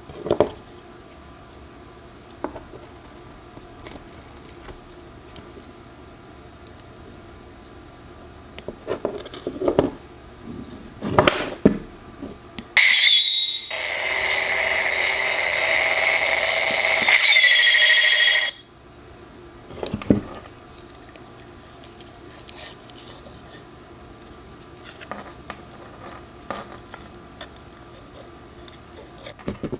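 Small clicks and scrapes of parts being handled, then the lightsaber sound board in a beam saber hilt plays its effect through a small speaker: an electronic ignition sweep about thirteen seconds in, a steady hum for about five seconds, and a retraction sweep that cuts off suddenly.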